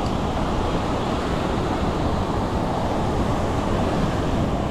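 Steady noise of ocean surf washing onto a sandy beach, with some wind on the microphone.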